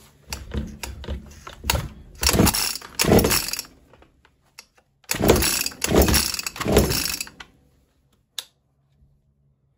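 Husqvarna 252RX brushcutter's two-stroke engine being cranked on its recoil starter: two runs of quick rope pulls with a pause between, and the engine does not catch. The owner puts this down to fuel not yet having been drawn through. A single click follows near the end.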